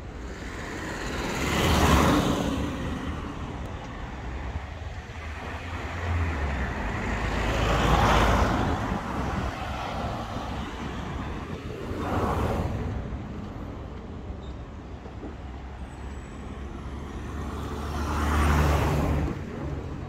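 Road traffic: cars passing one after another on a street, four pass-bys that each swell and fade over a couple of seconds, the loudest about two seconds in, about eight seconds in and near the end.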